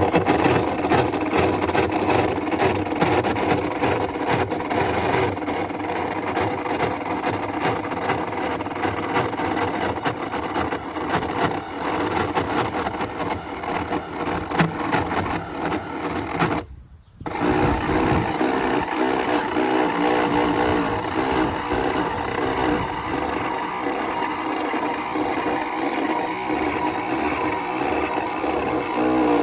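An outboard's electric power trim/tilt pump motor running with a steady whine. It cuts out for under a second about two-thirds of the way through, then runs again. The owner suspects low trim fluid or a failing trim pump.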